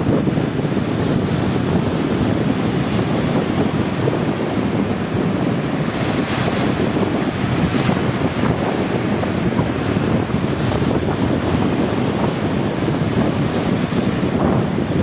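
Sea waves washing in a steady rush, with wind buffeting the microphone and a few brighter surges of water partway through.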